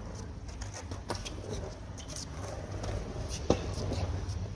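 Skatepark sound: a low rumble like skateboard wheels rolling on concrete, with scattered light clicks and one sharp clack a little past the middle.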